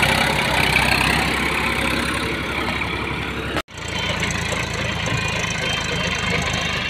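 Massey Ferguson tractor's three-cylinder diesel engine running steadily while working the soil. The sound cuts out suddenly for a moment about halfway through, then the engine sound resumes a little quieter.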